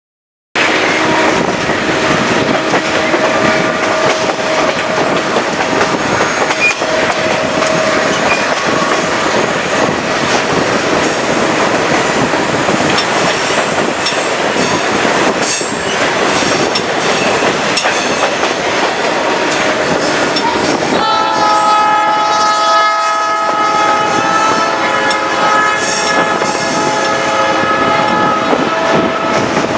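Chepe passenger train running on the rails, its wheels rumbling and clacking steadily. About twenty seconds in, the diesel locomotive's multi-note air horn sounds one long chord that lasts around eight seconds.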